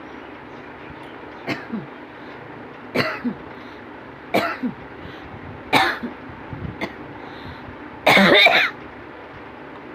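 A person coughing on purpose for a cough challenge: about five single coughs roughly a second and a half apart, then a longer, louder coughing fit about eight seconds in.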